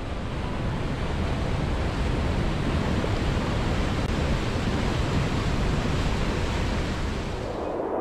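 Whitewater mountain river rushing over rocks below a waterfall: a steady, dense roar of water that fades away near the end.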